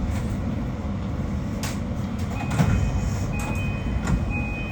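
JR Kyushu 821 series electric train heard from inside, a steady low rumble with a few sharp clicks. A thin high-pitched tone comes in about halfway through and holds.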